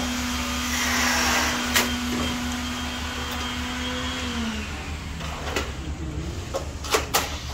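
A small motor running with a steady hum that glides down and stops about four and a half seconds in, followed by a few sharp knocks.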